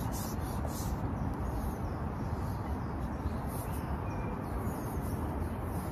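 Steady wind rumble on the microphone, with faint birdsong and a few brief rustles in the first second.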